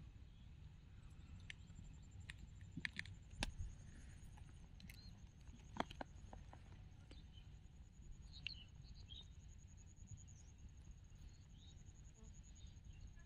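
Near silence: quiet outdoor ambience with a faint, steady high-pitched trill, a few soft clicks and taps in the first half, and faint short chirps about eight and a half seconds in.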